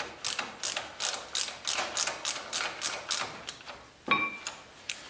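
Ratchet wrench clicking in a steady rhythm, about three to four clicks a second, while a bolt is turned. A single metallic clink with a brief ring follows near the end.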